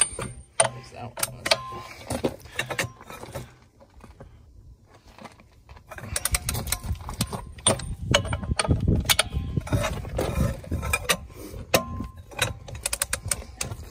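Socket ratchet and breaker bar on tractor wheel bolts: a run of metallic clicks and clinks as the bolts are broken loose, with a lull about four seconds in and a low rumble under the clicking in the second half.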